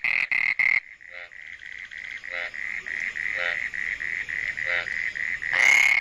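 Frog calling with its throat sac inflated: a fast, even run of high pulsed notes stops under a second in. Fainter pulsed calling and a few separate lower croaks follow, then a loud call starts again near the end.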